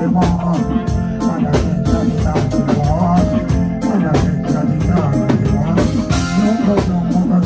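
Live dancehall reggae band playing at full volume, with a drum kit beating steadily, a bass line and keyboard chords.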